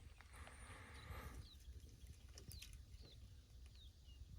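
Near silence: faint outdoor ambience with a low rumble and a few short, faint high chirps.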